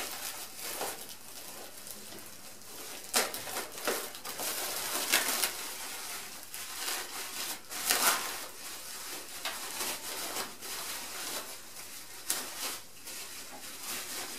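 Plastic wrapping being handled and unwrapped by hand, crinkling and rustling in irregular crackles.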